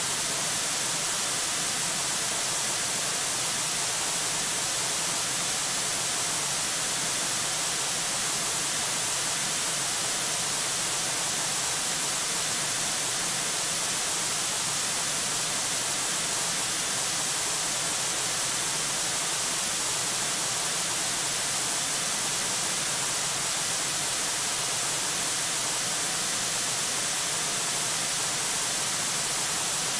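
Steady hiss of static, even and unbroken throughout, strongest in the high range, with no bird calls or other events standing out.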